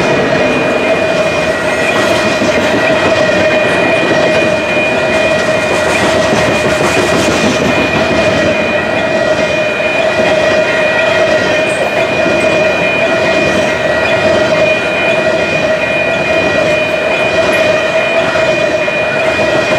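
Loaded canola freight cars of a long train rolling past at speed, their wheels clattering over the rails. A steady high ringing tone runs unchanged underneath.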